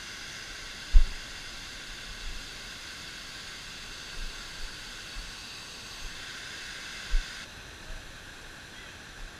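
Water rushing down a stepped concrete weir, heard as a steady hiss. A few short low thumps sound over it, the loudest about a second in. The hiss drops somewhat about seven and a half seconds in.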